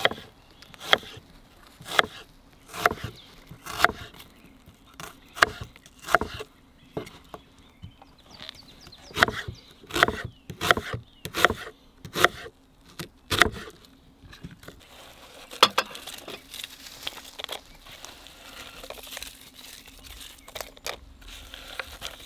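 A kitchen knife slicing an onion into half rings on a wooden cutting board, each cut ending in a sharp tap on the board, about one a second. Past the middle the cuts stop, giving way to fewer, softer scattered sounds as the sliced onion is spread in the pot.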